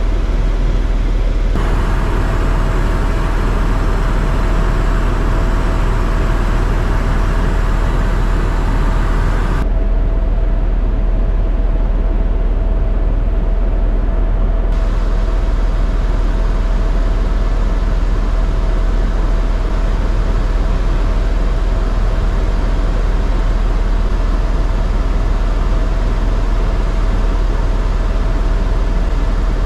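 Helicopter running with steady engine and rotor noise and a constant mid-pitched whine. A higher hiss comes in sharply about a second and a half in and cuts off about ten seconds in.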